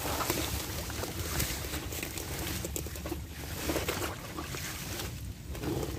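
Waterside plants rustling and water sloshing as someone pushes through dense vegetation, with frequent small crackles.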